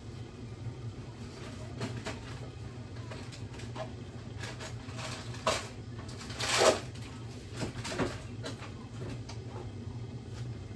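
Scattered kitchen knocks and clatter from handling cookware, with a louder knock or scrape about six and a half seconds in, over a steady low hum.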